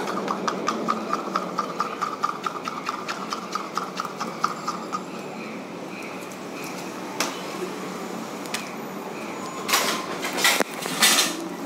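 Thin metal rod stirring thick yellow screen-printing ink in a small plastic cup, a fast regular scraping and clicking about four or five strokes a second that stops about five seconds in. Near the end, a couple of short, louder rustling noises.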